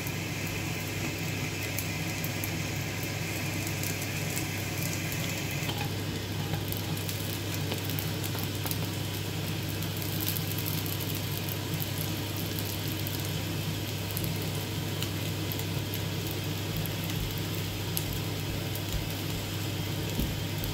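Kefir pancakes (oladi) sizzling steadily in oil in a cast-iron frying pan, with a few light clicks as a fork turns them. A steady low hum runs underneath.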